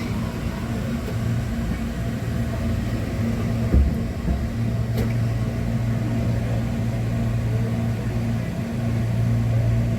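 Inside a Hankyu train car during a run through the depot's train-washing plant: a steady low mechanical hum, with a single low thump about four seconds in.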